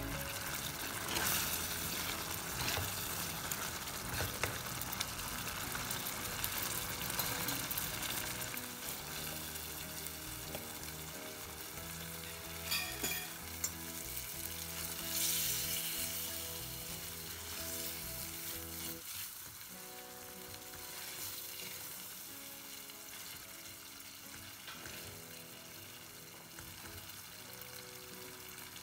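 Masala-coated prawns sizzling as they fry in a pan, with a few clinks and scrapes of stirring partway through; the sizzle slowly gets quieter toward the end. Soft background music plays underneath.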